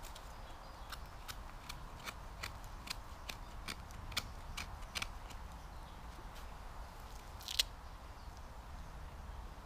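Knife cutting shavings from a piece of split dry wood: a string of short, crisp cuts, two or three a second, with one sharper scrape near the end.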